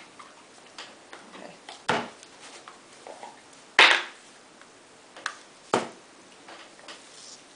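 Irregular sharp clicks and knocks of objects being picked up and set down on a tabletop: about five clear knocks with fainter taps between them, the loudest in the middle.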